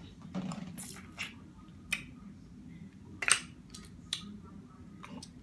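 Eating a seafood boil: wet squishing and a scatter of sharp clicks and cracks as shellfish are pulled apart and eaten, the loudest crack about three seconds in.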